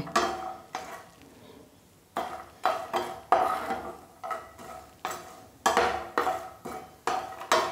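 Steel perforated skimmer clinking and scraping against a frying pan as almonds are stirred in ghee. The strokes come in a repeated series with brief metallic ringing, with a short pause about a second in.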